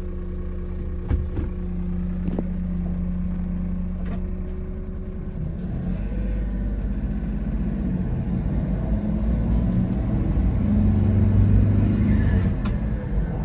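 1997 Mitsubishi Minicab truck's small three-cylinder engine idling steadily with a few light clicks, then pulling away: its pitch wanders and it grows louder as the truck drives off, loudest near the end.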